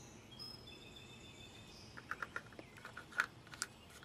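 Faint clicks and ticks of a plastic oil filler cap being fitted and twisted back onto an engine's valve cover, a run of them in the second half with two louder ones near the end. Faint bird chirps in the first half.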